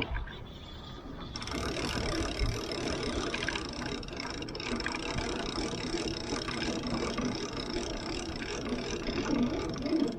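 Fishing reel being cranked in, its gears making a steady, fast clicking whir that starts about a second in.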